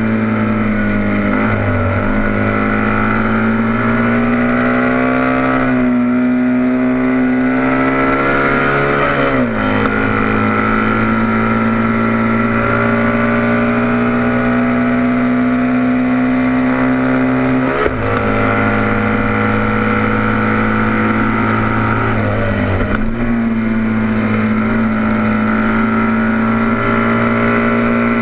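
Onboard sound of a vintage heavyweight production racing motorcycle's engine running at high revs. Its pitch climbs slowly, then drops sharply at a gear change about a third of the way in, shifts again about two-thirds through, and dips and recovers shortly after.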